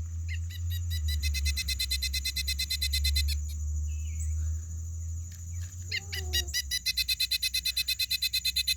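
Pileated woodpecker call from a plush toy bird's sound box: a fast, even series of loud notes, about six a second. It plays for about three seconds, stops, and plays again near the end.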